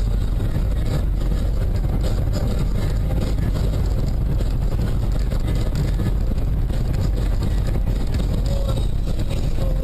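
Steady low rumble of a moving car, engine and road noise running evenly, with no impact or crash heard.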